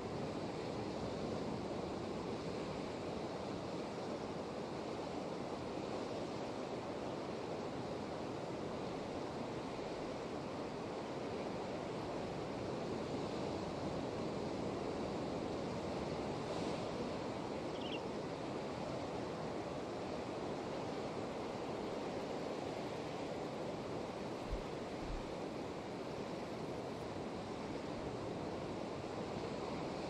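Ocean surf breaking on rocks, a steady, continuous wash of wave noise.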